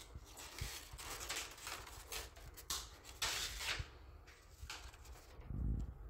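Paper rustling and crinkling in several bursts as a sheet is lifted and handled, loudest a little past the middle, followed by a dull thump near the end.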